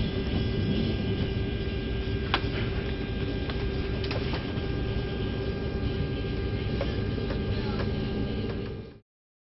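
Steady drone of an airliner cabin, the hum of its air and engine systems, with a sharp click about two seconds in and a few lighter clicks.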